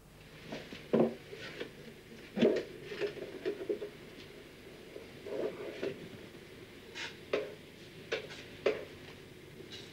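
Kitchen clatter: a string of irregular knocks and clinks as crockery and wooden furniture are handled, the two loudest about a second in and about two and a half seconds in.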